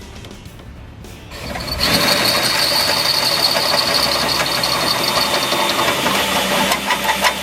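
Electric drill spinning up about a second and a half in and running steadily with a high whine, drilling a hole.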